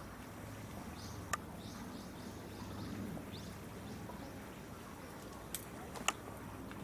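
A small bird chirping: a quick run of short, high notes over a couple of seconds, with a few sharp clicks about a second in and near the end, over steady low background hum.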